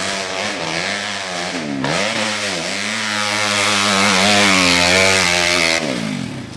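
Dirt bike engine revving hard under load on a steep hill climb. The revs dip and pick up twice, are then held high, and cut away about six seconds in.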